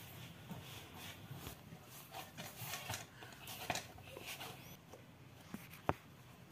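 Hand kneading dough in a steel plate: faint, irregular rubbing and pressing with scattered light clicks, and one sharper click near the end.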